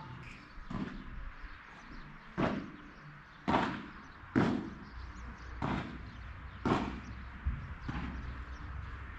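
Padel balls being struck and bouncing: a series of sharp hollow knocks, about seven in all, roughly a second apart, the loudest near the middle.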